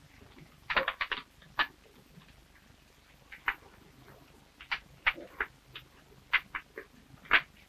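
Fire crackling inside a cask of oak staves during firing, the heating that makes the staves pliable enough to bend together: irregular sharp snaps and pops, with a quick cluster of them about a second in.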